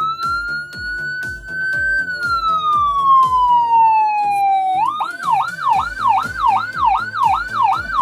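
Whelen HHS3200 electronic siren amplifier sounding, the unit powered up and working: a wail tone rises for about two seconds and then falls slowly, and about five seconds in it switches to a fast yelp sweeping up and down about three times a second. Background music with a steady beat runs underneath.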